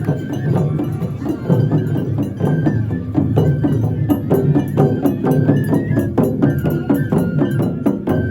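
Japanese festival music (matsuri bayashi): rapid drum and percussion strikes under a high, held flute melody that steps between notes.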